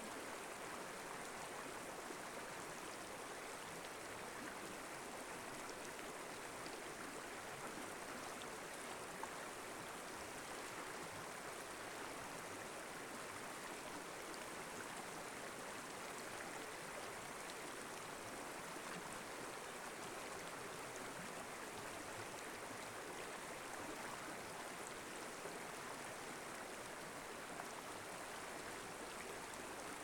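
Forest river flowing, a steady even rushing of water.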